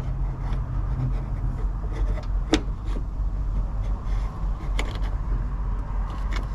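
Steady low rumble with a few sharp knocks and taps as mini-split refrigerant hoses are handled and pushed up through a hole in the floor.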